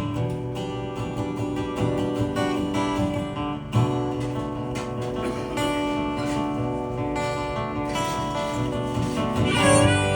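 Acoustic guitar strummed through an instrumental passage of a country song, with no singing.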